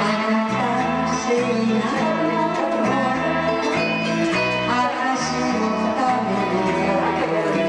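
A woman singing a Japanese ballad into a handheld karaoke microphone over a recorded backing track.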